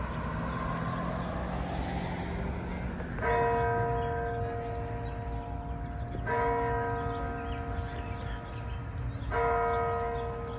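A large church tower bell tolling slowly: three strikes on the same note about three seconds apart, each ringing on and fading, over steady outdoor background noise.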